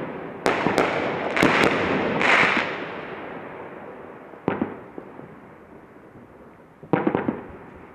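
A 500-gram double-break fireworks cake firing its last shots: two pairs of sharp bangs in the first second and a half, each shell breaking twice, then a short rushing burst about two seconds in. The sound fades off, with a lone bang about four and a half seconds in and a short cluster of bangs near the end.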